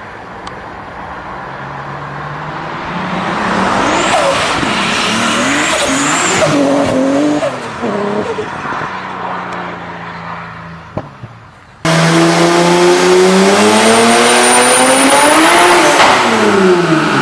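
BMW E30 engine running at low revs, then revving hard under acceleration from about three seconds in, its pitch climbing and dropping. About twelve seconds in it cuts abruptly to a louder run of an engine revving up with a thin high whine, its pitch falling near the end.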